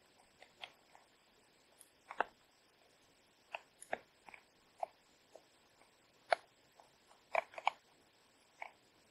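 Metal spoon scraping very thick soup out of a plastic tub into a metal camping pot: a scatter of short scrapes, clicks and taps at irregular intervals.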